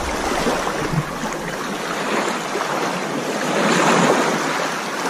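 Sea water washing and lapping, a steady rushing noise with a little wind on the microphone, swelling briefly just before four seconds in.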